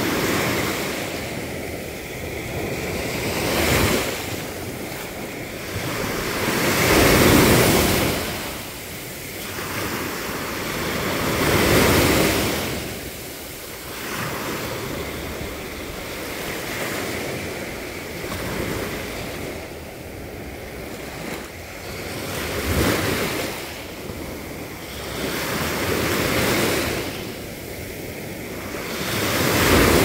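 Small sea waves breaking on a beach, a rush of surf and foam that swells and fades every few seconds.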